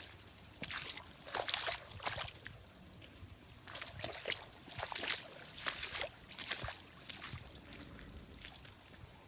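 Footsteps splashing through shallow standing water and mud on a flooded yard, a short splash every half second to a second.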